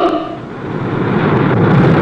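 A loud, even rushing rumble that swells from about half a second in, right after a horn-like tone cuts off.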